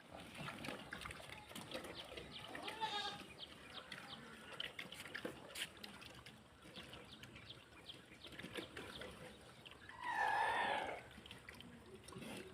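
Livestock calling on a farm: a short call about three seconds in, then a louder call lasting about a second near the end, over scattered clicks and rustling.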